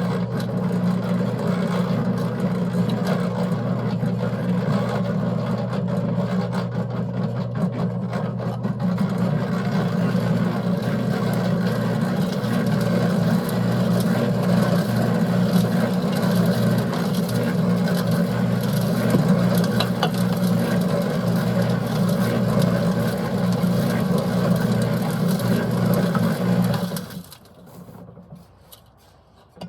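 Concrete mixer running, its drum turning and churning a batch of wet concrete with a steady hum, until the mixer cuts off near the end.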